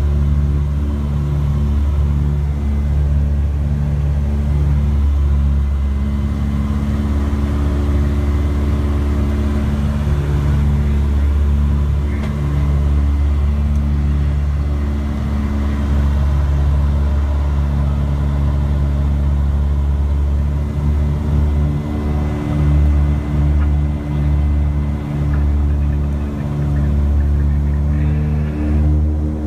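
Aircraft engines heard from inside the cockpit in flight: a loud, steady low drone with several pitched tones that pulse slightly.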